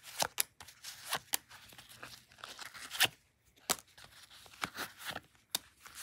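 Plastic cards being worked out of a tightly packed nylon card-sleeve wallet: irregular clicks and short scrapes of card edges against each other and the fabric.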